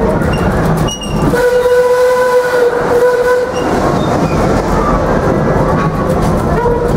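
Steam locomotive whistle blowing one steady blast of about two seconds over the rolling noise and clickety-clack of the moving train. A brief second toot comes near the end.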